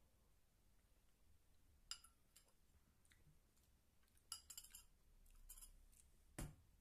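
Faint, sharp clinks of a metal fork against a ceramic bowl, with a quick cluster of clicks past the middle, then a heavier knock near the end.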